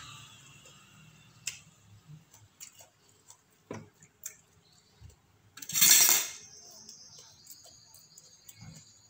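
Tableware being handled: scattered small clicks and taps of utensils and plates, then one loud, brief clatter about six seconds in as a knife is picked up from the plates.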